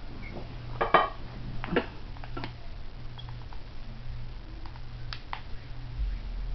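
Light clicks and clacks of a curling iron being handled and worked into the hair, the loudest about a second in, then a few fainter ticks. A steady low hum runs underneath.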